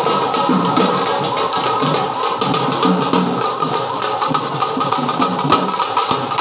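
Music with a wavering melody line over a low pulsing part, with drum strokes coming through more often near the end.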